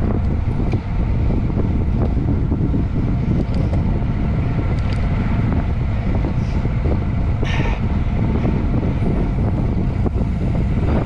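Wind buffeting the microphone of a camera mounted on a road bike riding at about 20 mph, a steady loud rumble.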